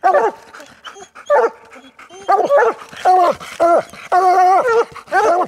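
Two coonhounds tree-barking at the base of a den tree, the bark of hounds that have a raccoon treed. The barks come in a steady run of about two a second, with one longer drawn-out bawl a little past the middle.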